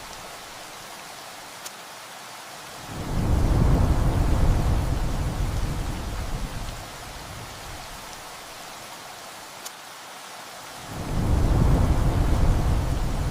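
Steady heavy rain hissing, with two low rolls of thunder: one starting about three seconds in and fading after a few seconds, the other starting near the end.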